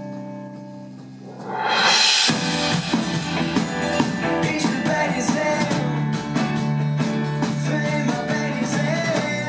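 Live pop band playing an instrumental passage: a held chord on keyboard and guitars, a rising swell about a second and a half in, then drums and a deep low end come in with the guitars about two seconds in and the band plays on with a steady beat.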